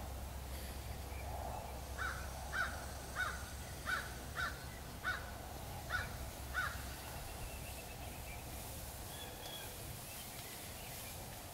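A bird giving a series of about eight short, harsh calls, roughly two a second, then stopping; faint thin chirps of smaller birds follow over a steady low rumble.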